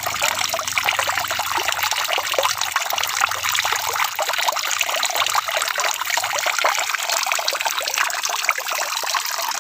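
Steady rain: a dense, even hiss of countless small drops striking, with water trickling.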